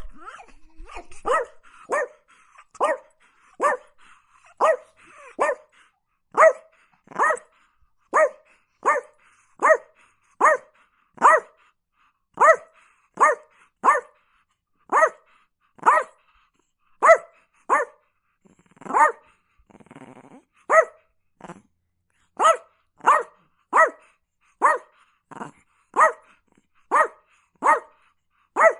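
A dog barking over and over, single barks at an even pace of a little more than one a second, with a short break about two-thirds of the way through.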